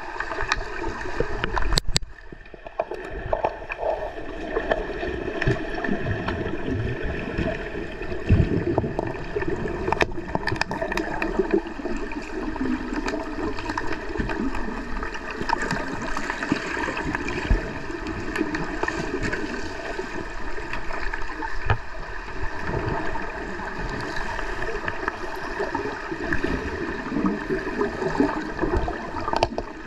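Underwater ambience of an underwater hockey game, picked up by a camera under the water: steady bubbling and churning water from players' fins and exhaled bubbles, with scattered sharp clicks and knocks of sticks and puck on the pool floor.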